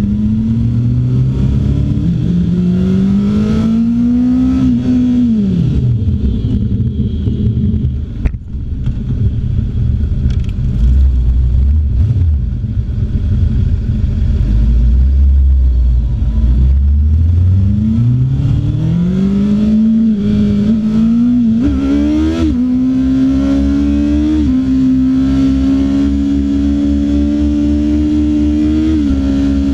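Honda CBR600's inline-four engine heard from on board, pulling with rising revs, then dropping sharply as the throttle closes about five seconds in. After a stretch of low rumble it picks up again at about 18 s, climbing in short steps like quick gear changes, then holds steady revs while cruising, with wind rumble on the microphone.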